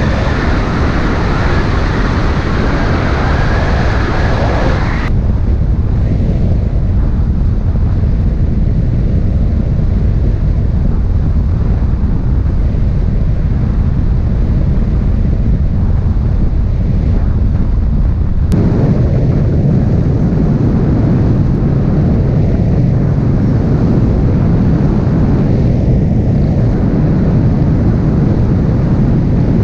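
Steady rush of airflow and wind buffeting on the microphone of a light aircraft in flight, mostly a low, heavy noise. The tone changes abruptly about five seconds in, losing its upper hiss, and again near eighteen seconds, when the low rumble grows.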